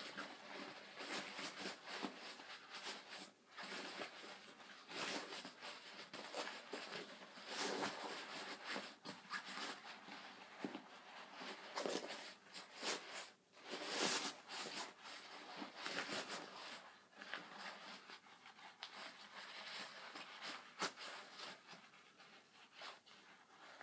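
Rustling and scrunching of a Vera Bradley fabric bag being crumpled and pressed into shape by hand, an irregular run of soft crinkling strokes.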